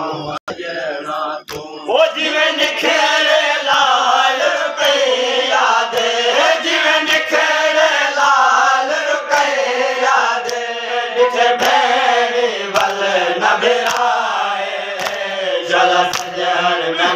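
Men's group chanting a noha (Shia mourning lament) in unison. The chant picks up again about two seconds in after a brief lull. Sharp slaps are heard through it, coming more regularly near the end, the sound of chest-beating (matam) in time with the lament.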